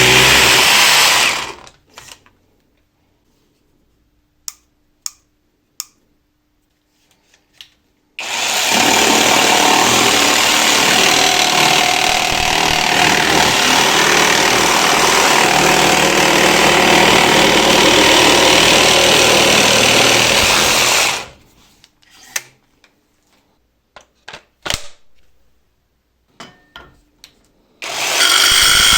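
A jigsaw cutting in three runs. The first stops about a second and a half in. After a few handling clicks the saw starts again for about thirteen seconds, stops, and after more clicks starts again near the end.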